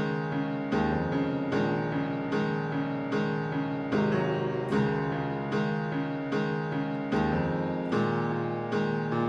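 Background music: a keyboard or piano piece with evenly spaced notes struck in a steady rhythm, a little under two a second.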